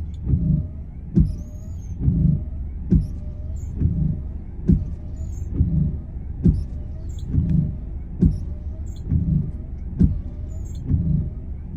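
Car windshield wipers sweeping in the rain, about once a second, each stroke ending in a thud with a rubbery squeak of the blades across the glass, over the low hum of the idling car.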